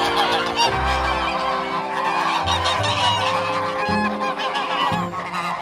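A large flock of domestic geese honking over one another without a break, with ganders fighting among them. Fighting ganders are usually a sign that some of the females are getting ready to breed.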